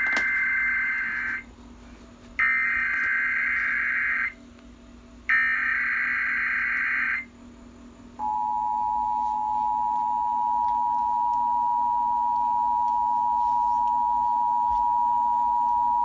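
Emergency Alert System Required Monthly Test through a television's speaker: three bursts of the buzzing digital SAME header tones, each about two seconds long with short gaps, then the two-tone attention signal, a steady dual tone that starts about eight seconds in and holds for about nine seconds.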